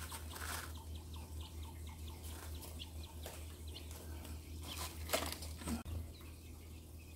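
Mini quails softly peeping in short chirps, with a few brief rustles in the husk bedding over a steady low hum.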